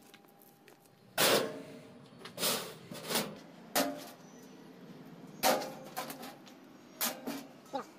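Loose metal roller chains clinking and rattling as they are handled and dropped onto a concrete floor, in about six separate clatters.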